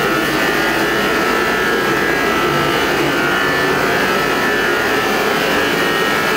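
A machine running steadily, giving an even drone with a faint, steady whine in it.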